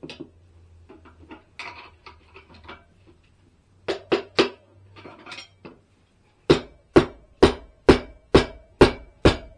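Steel tire irons clinking and scraping against a motorcycle wheel rim as the last stretch of tire bead is levered on. About six and a half seconds in, this turns into an even run of sharp metallic knocks, about two a second, with a slight ring.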